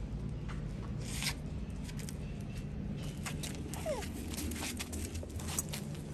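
Monkeys moving about: scattered clicks, crackles and rustles, with one short squeak falling in pitch about four seconds in, over a steady low rumble.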